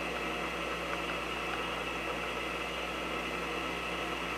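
Milling machine spindle running with an end mill side-cutting a hex flat into 4140 steel, a steady, even machining noise.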